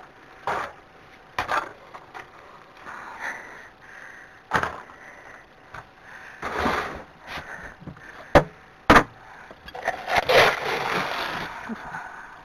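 Plastic feed bowls and buckets knocking and clattering, with rustling and scraping as horse feed is handled and scooped. Scattered sharp knocks, the loudest two close together about two-thirds of the way in.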